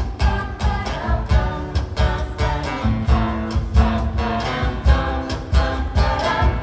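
Live band playing an upbeat instrumental intro: strummed acoustic guitar over a steady bass and drum beat.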